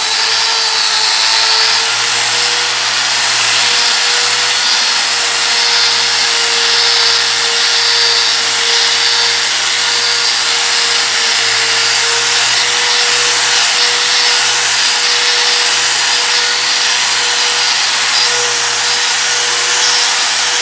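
Electric angle grinder running steadily, its 3000-grit dry resin diamond polishing pad buffing a marble floor in the final polishing stage. It makes a constant motor whine over a steady grinding hiss.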